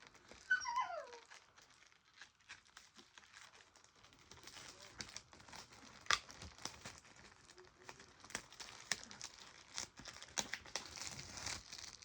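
Plastic shrink-wrap on a VHS tape case being torn open and crumpled: irregular crinkling and crackling, busiest in the second half. A short falling squeal is heard about half a second in.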